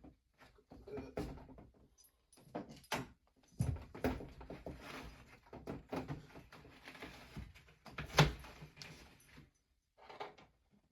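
Irregular knocks, clatter and scraping of a dirty air filter being worked out of its slot at the bottom of an AC air handler, with one sharp knock about eight seconds in; it goes quiet near the end apart from a few small clicks.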